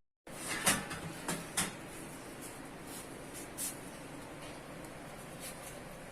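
A few short, light knocks and clatters, four or so in the first four seconds, the first the loudest, over a steady low background hiss.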